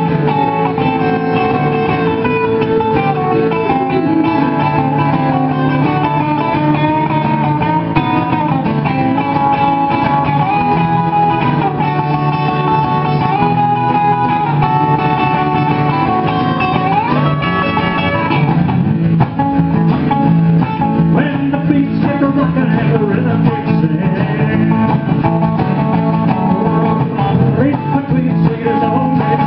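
Live country-rockabilly song in an instrumental break: guitar playing a melodic line over a steady rhythm, with no singing, and one rising slide in pitch a little past the middle.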